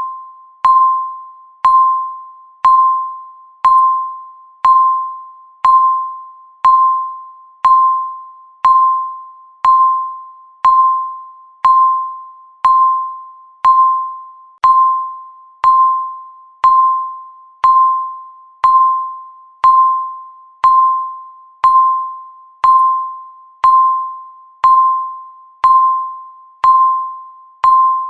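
Countdown timer ticking once a second, each tick a sharp click followed by a short ringing tone that fades quickly, perfectly regular throughout.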